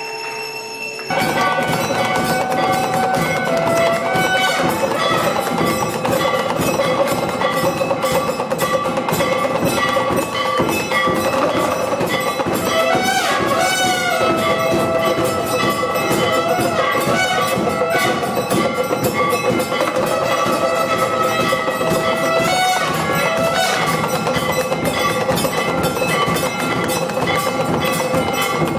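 Temple arati music: a two-headed hand drum beaten with bells ringing together in a loud, dense, continuous clangour. It starts abruptly about a second in, after a short bell-like chime.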